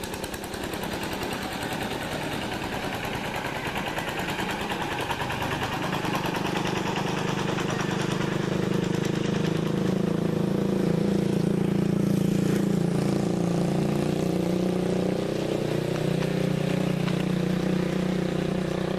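A motor vehicle's engine running steadily, its pitch shifting a little as its speed changes, a bit louder from about a third of the way in.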